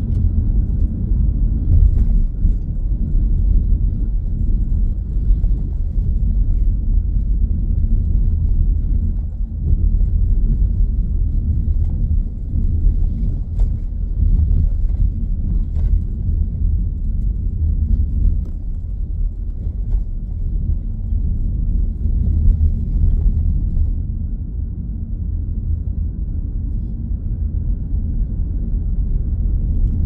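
Steady low rumble of road and engine noise inside the cabin of a moving Mitsubishi Grandis MPV, with a few faint ticks here and there.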